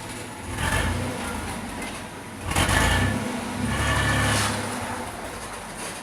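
GM Vortec 4.3 V6 engine revved in three blips, the last held about a second, growling loud and dropping back toward idle between them.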